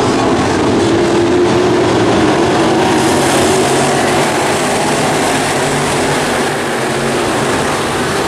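Race car engines running at speed around the track, a loud, steady drone whose pitch wavers as the cars circle.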